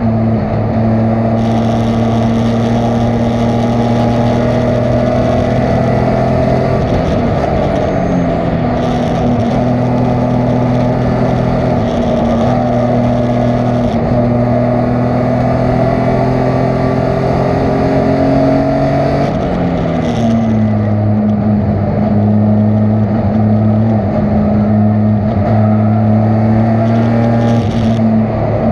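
Race car engine running hard and steady at high revs. The pitch creeps slowly up, then drops about a quarter of the way in and again about two-thirds of the way in, as the driver shifts or lifts.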